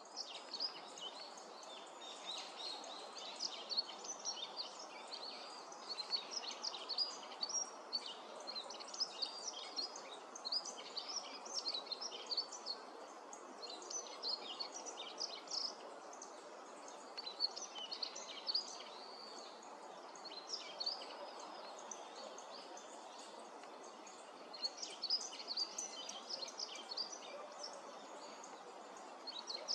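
Yellow-throated bunting singing: short, high twittering phrases repeated again and again with brief pauses, over a steady background rush.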